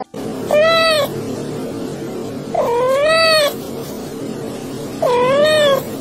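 Domestic cat meowing three times for food, each meow under a second and rising then falling in pitch, over a steady low background hum.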